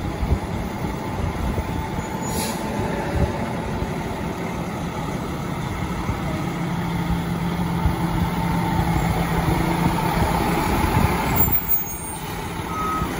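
Fire engine's diesel engine running as the truck pulls out and drives past, growing louder towards the end, with a short air-brake hiss about two seconds in. Reversing beeps start right at the end.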